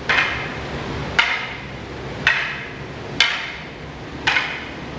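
Wooden aikido practice swords (bokken) clacking together, five sharp wood-on-wood strikes about a second apart, each with a short ring.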